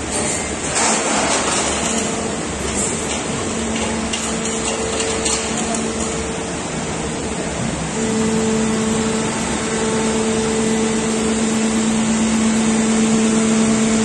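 Shibaura Machine TD 150 injection molding machine running through its preform-molding cycle: a steady hum that switches on and off in stretches and is loudest from about eight seconds in, over a constant wash of machine noise, with a brief hiss about a second in.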